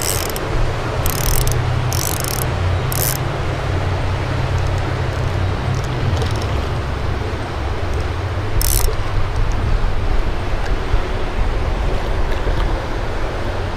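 Fishing reel drag giving line in short bursts while a hooked bass pulls, over a steady low rumble.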